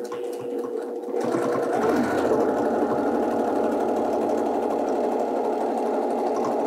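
Domestic sewing machine stitching free-motion quilting through a quilt, running quietly at first and then speeding up about a second in to a steady, fast stitching run.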